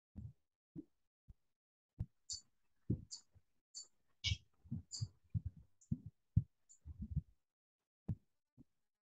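Marker whiteboard being wiped clean with a duster: a run of soft, dull thumps, with short scrubbing swishes in the middle of the clip.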